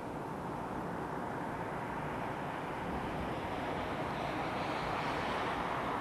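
Train of ballast hopper wagons rolling past with a steady rumble, growing louder toward the end as the pair of BB 69000 diesel-electric locomotives pushing it draws near.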